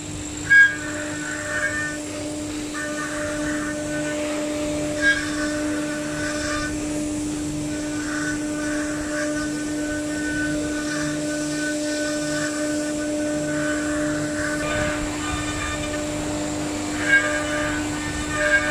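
CNC router spindle running with a steady whine while the bit carves a pattern into an MDF panel. The higher cutting noise swells and fades as the tool moves along the pattern, with a few short louder spikes.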